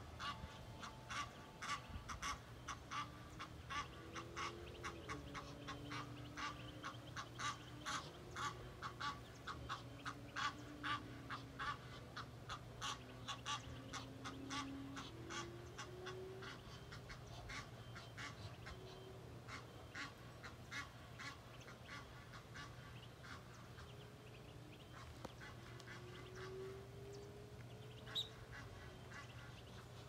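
Waterfowl calling: a fast run of short harsh honks, several a second, that thins out after about twenty seconds, with one sharp high note near the end.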